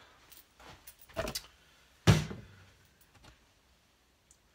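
A few light knocks and clicks of things being handled on a workbench, with one louder thud about two seconds in; no motor is running.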